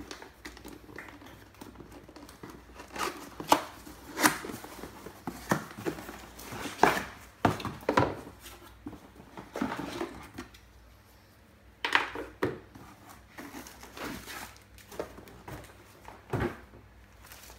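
Cardboard Dell laptop box being opened and unpacked by hand: flaps, packing and plastic rustling and scraping, with scattered short knocks as pieces are lifted out and set down on the desk.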